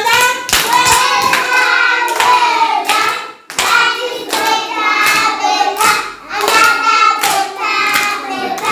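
Young children singing together while clapping a steady beat, about two claps a second. The singing and clapping break off briefly about three and a half seconds in, then carry on.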